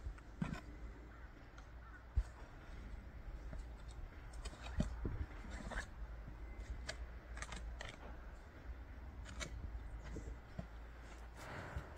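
Scattered light clicks and knocks, the sharpest about two seconds in, over a low steady rumble.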